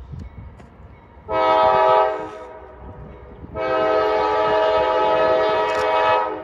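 Nathan K5LA five-chime air horn on a CSX CM44AC locomotive sounding two blasts: a short one about a second in, then a long one of nearly three seconds. Under the horn runs the low rumble of the approaching freight train.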